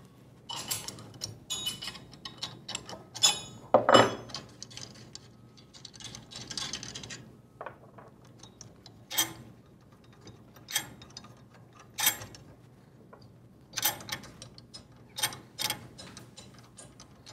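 A wrench working the body nuts off the studs of a split-body flanged ball valve: scattered sharp metallic clicks and clinks with short scraping stretches, as the nuts are spun off and the nuts and wrench are set down on a wooden workbench.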